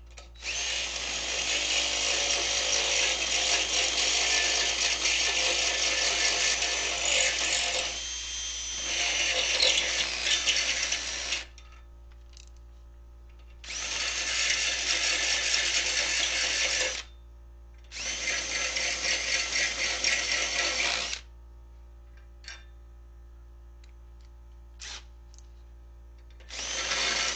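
Drill running and cutting into steel in several bursts, the bit pushed sideways to elongate bolt holes into slots. There is one long run of about eleven seconds, then two runs of about three seconds and a short one at the end.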